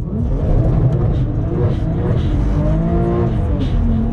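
BMW 1M's twin-turbo straight-six revving hard through a donut on wet pavement, the engine note rising and falling.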